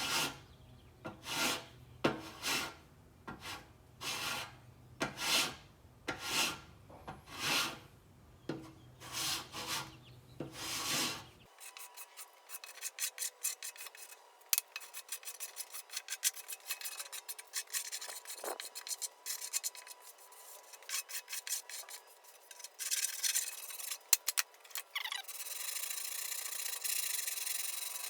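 Surform-style shaping file (a "cheese grater") shaving cured body filler on a steel bumper, in separate strokes a little more than one a second for about the first eleven seconds. It is followed by quicker, finer scraping that becomes a steady rasp near the end.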